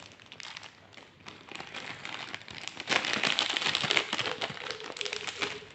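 Small plastic accessory bag crinkling and rustling as it is handled, loudest from about three to five seconds in.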